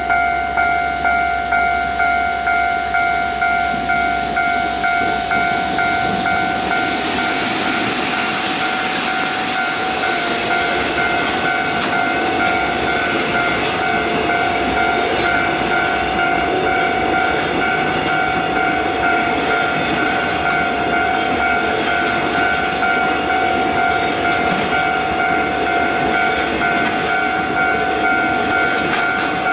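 A container freight train hauled by an EF65 electric locomotive runs past, the noise of its wheels and wagons building from about six seconds in and staying loud. A steady ringing warning tone, pulsing about twice a second, sounds over it throughout, as at a level-crossing alarm.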